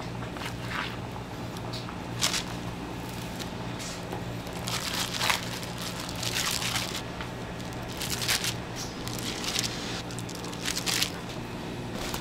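Plastic wrap crinkling and rustling in irregular bursts as a plastic bench scraper is pressed through a slab of mugwort rice cake laid on it and the cut squares are handled, over a steady low hum.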